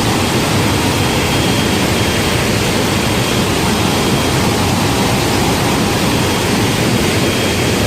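Heavy flow of water rushing out of a dam outlet at Tarbela Dam: a loud, steady rushing noise without change.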